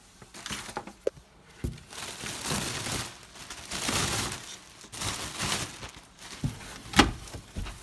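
Clear plastic wrapping crinkling and rustling as a boxed TV is handled inside a cardboard shipping carton, with a few sharp knocks, the loudest near the end.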